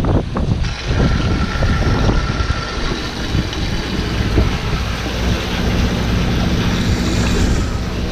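Steady low rumble of a sportfishing boat's engine running, mixed with wind buffeting the microphone and the wash of water.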